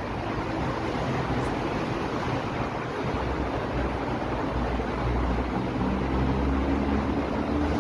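Steady road traffic noise from a busy road below, with a low engine hum from a passing heavy vehicle growing stronger about halfway through.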